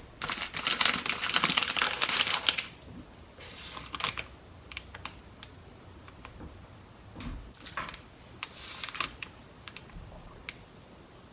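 Rapid light clicking and crackling for about two and a half seconds, then scattered single clicks, as sakura denbu (pink seasoned fish flakes) is placed along the fillings of a sushi roll.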